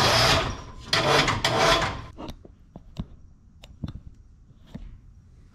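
Metal scraping twice, about a second apart, as a steel A/C compressor hanging from a winch hook is set down and slid on a steel cutting table, followed by a few light clicks and knocks.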